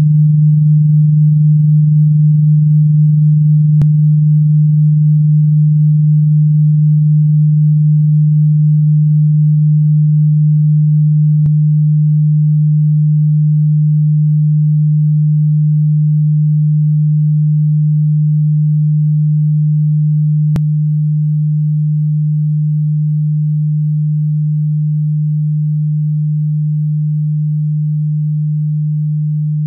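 A single steady, low, pure electronic tone that holds one pitch and slowly gets a little quieter, with three faint clicks along the way.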